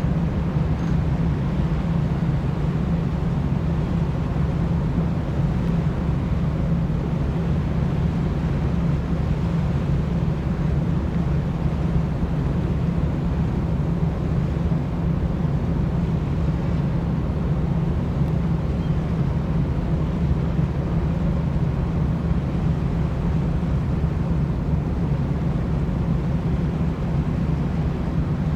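Steady low rumble and hum of the car ferry Ōsado Maru's engines and machinery, heard on its open deck while the ship is under way.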